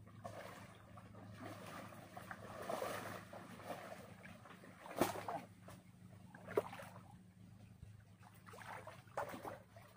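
Faint sloshing of shallow river water as people wade through it, over a steady low hum, with a sharp knock about five seconds in and another a second and a half later.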